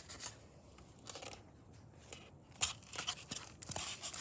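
Packaging foam and plastic rustling and crinkling, with scattered light clicks and knocks as a boxed electric scooter is handled and lifted free of its packing. The sharpest knock comes about two and a half seconds in.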